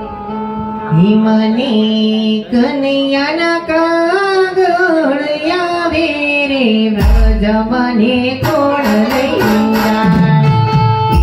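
A single voice singing a devotional folk song in long, gliding phrases over held instrumental notes; drum beats come in about seven seconds in.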